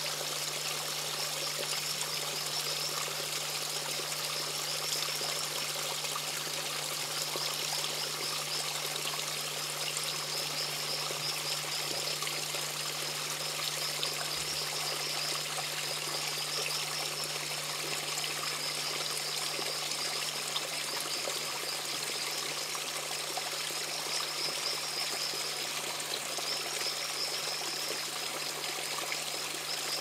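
Small forest stream splashing steadily over rocks in a little cascade. A high, pulsing insect chirr sits above the water and drops out briefly near the end.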